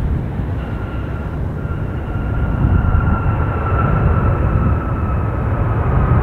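Jet airliner passing close by: a loud low rumble with a high engine whine that slowly falls in pitch, growing louder partway through.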